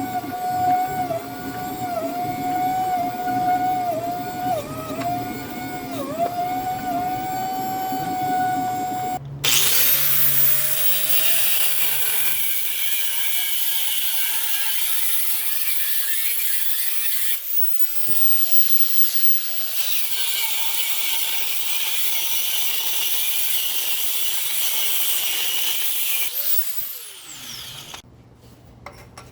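Electric grinder working steel. First its motor hums with the pitch dipping each time it is loaded, then a harsh, high grinding hiss takes over about a third of the way in. The motor winds up and down a few times and stops near the end.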